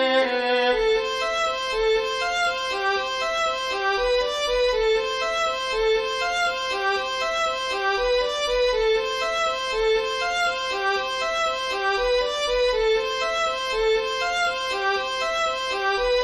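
Score playback of a single melodic line with a violin-like sound, playing steady running eighth-note arpeggios at about four notes a second.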